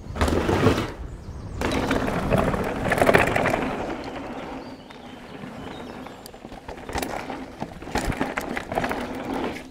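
Specialized Enduro mountain bike riding down a dirt trail: tyres rolling over the ground with a rushing noise that swells and fades, and a few sharp knocks from the bike over bumps in the last few seconds.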